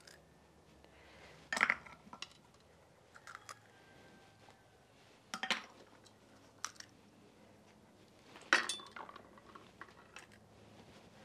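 Eggshell halves and dishes clinking as egg yolks are tipped from their shells into a bowl of beaten egg whites: about five light, sharp taps spread over a quiet stretch.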